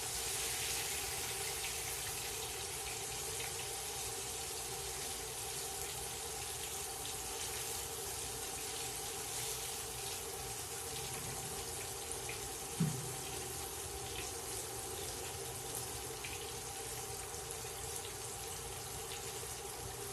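Dredged American white grunt fillets frying in peanut oil in a cast-iron pan: a steady sizzle that has begun to slow down as the fish's excess moisture cooks out. A single short thump about thirteen seconds in.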